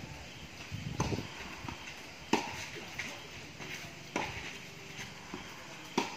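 Tennis ball being hit back and forth in a rally: sharp racket strikes about every two seconds, with fainter knocks of the ball bouncing between them.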